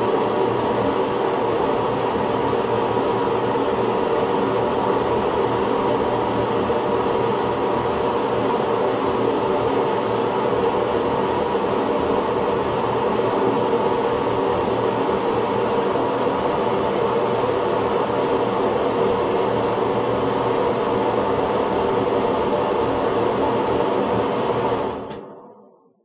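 Ventilation fan running steadily: an even rush of air with a steady hum in it, fading out about a second before the end.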